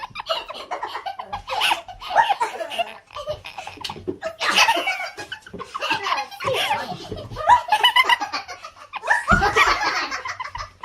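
Hearty human laughter in repeated bursts with short breaks.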